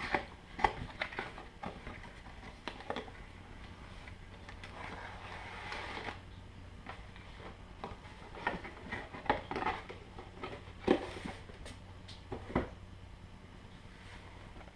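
Cardboard kit box being opened by hand: scattered taps and clicks as the box flaps are handled, and a longer soft rustle near the middle as the plastic-bagged rocket slides out.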